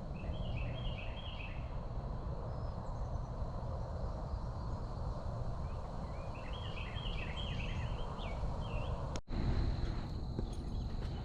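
Outdoor creekside ambience: a steady high insect drone and two runs of rapid, repeated chirping calls, over a constant low rumble.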